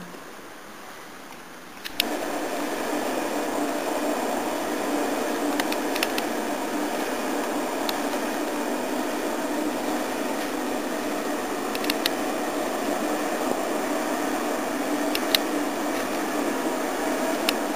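Train passing on the main railway line: a steady rumble with a low hum sets in suddenly about two seconds in and holds, with a few sharp clicks over it.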